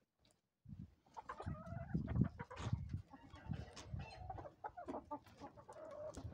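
A flock of chickens clucking in short, overlapping calls as they peck at bulgur feed on the ground. The clucking starts after a moment of silence.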